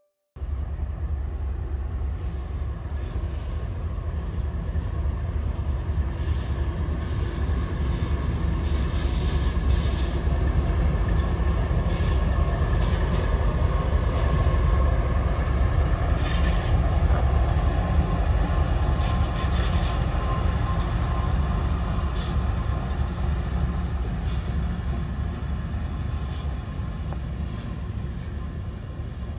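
Two-section 2TE10MK diesel locomotive running light, its V16 diesel engines giving a deep, steady rumble that grows loudest around the middle as it passes and fades as it draws away. Brief high screeches, from the wheels, come a few times in the second half.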